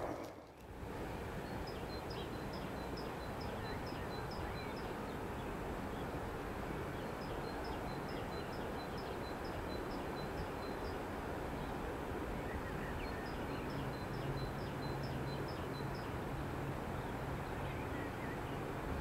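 Steady rush of flowing river water, with a small bird singing three runs of quick, high, repeated chirps over it.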